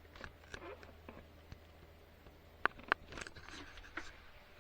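Faint rustling and scraping of hands handling a small action camera, with two quick sharp clicks a little past halfway.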